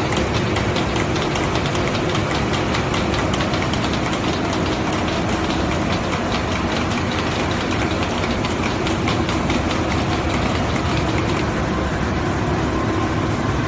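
Wide-width satellite printing press running: a steady, loud mechanical drone with a fast regular ticking that fades out about halfway through.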